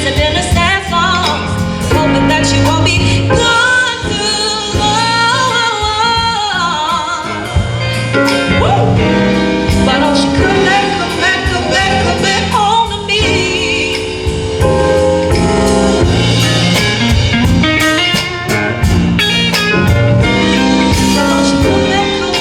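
A band performing a song: a singer's voice bends through wavering runs over steady bass notes and a drum beat.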